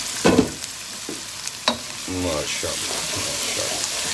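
Thick onion-tomato masala frying and sizzling in a non-stick wok, stirred and scraped with a wooden spoon. A couple of loud knocks just after the start and a sharp click near the middle; the sizzle and scraping are steadier from about halfway.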